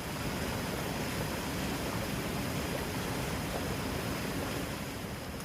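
Steady rushing noise of strong wind and sea waves at the shore, with no distinct events.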